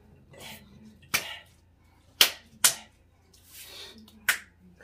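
Hands slapping and clapping in a handshake routine: four sharp slaps, two of them in quick succession about halfway through and the last near the end.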